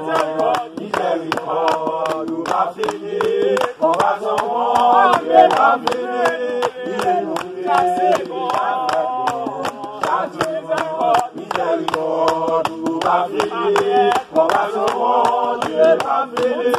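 A small group of men and women singing a worship song together without instruments, with hand-clapping keeping a steady beat of about two to three claps a second.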